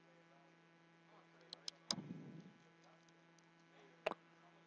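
A few sharp clicks of small repair tools against an opened iPhone 6s and its parts: three in quick succession about two seconds in, the last the loudest, and one more near the end, over a steady mains hum.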